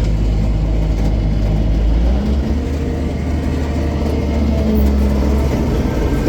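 Combine harvester's diesel engine running steadily at working speed, its low note shifting slightly about two seconds in.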